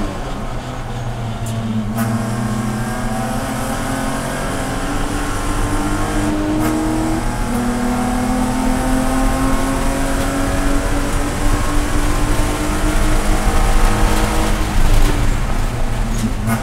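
BMW E46 race car's straight-six engine heard from inside the stripped cockpit, pulling under full throttle with its pitch climbing. About seven seconds in it drops sharply on an upshift, then climbs again before easing off near the end. Steady road and drivetrain rumble runs underneath.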